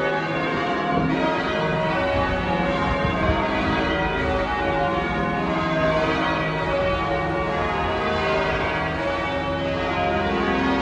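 Church bells ringing in a continuous peal, several bells of different pitches sounding over one another without a break.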